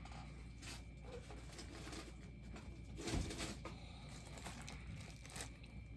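Faint handling of a cardboard box and its packaging, with scattered soft rustles and one louder knock about three seconds in.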